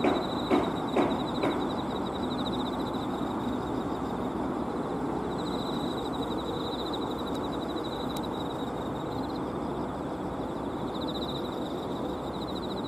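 Insects trilling, a high, fast-pulsing chirp that comes and goes, over a steady background rumble. Four footsteps sound about half a second apart in the first second and a half.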